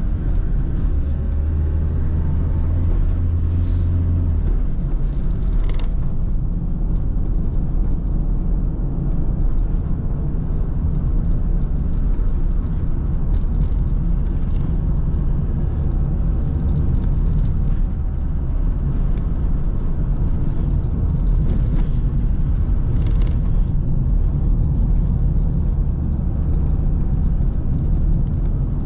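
Car driving on a road: a steady low rumble of engine and tyres, with an engine hum that drops away about four and a half seconds in.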